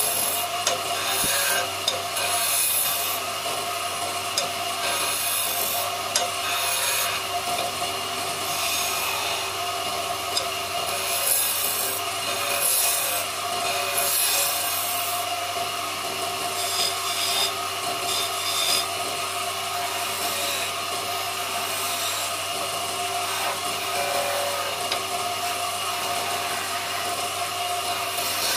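Lathe tool cutting a spinning wooden blank: a continuous scraping, shaving hiss over the steady hum of the running lathe. Sharper flares of hiss come as the tool bites, more often in the first half.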